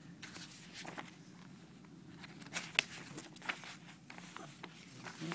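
A paper instruction manual rustles and crinkles as the sheets are handled and turned over. It makes a run of irregular crackles, the sharpest about halfway through.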